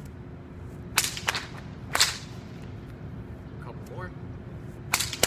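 Whip cracking: sharp cracks about a second in and a second later, then a quick double crack near the end.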